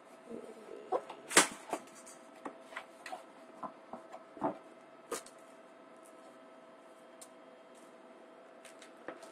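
Cardboard product box being opened and handled: a string of short scrapes and knocks through the first five seconds or so, over a faint steady hum.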